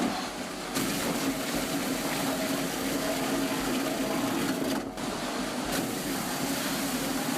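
Heavy machinery running with a steady hum over a noisy haze; it drops away briefly just after the start and again about five seconds in.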